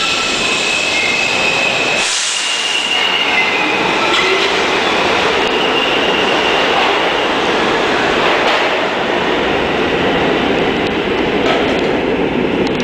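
Subway train pulling out of the station, a loud steady rumble with its wheels squealing at a few steady high pitches early on. A short hiss comes about two seconds in.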